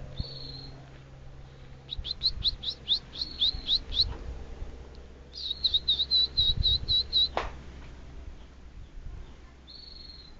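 Canary singing: a run of about a dozen quick rising notes, then after a short pause a fast trill of repeated notes that stops abruptly, with a short high note at the start and another near the end.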